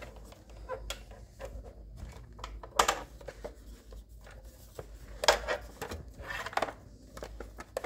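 Handling noise from a plastic radio-cassette recorder being handled: scattered light taps, knocks and rubbing, with louder knocks a little under 3 seconds in, about 5 seconds in and about 6.5 seconds in.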